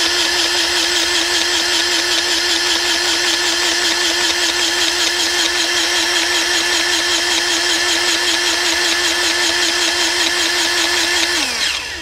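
Battery-powered grease gun running steadily, pumping grease into a sawmill mandrel bearing. It gives a steady whine that spins up at the start and winds down near the end.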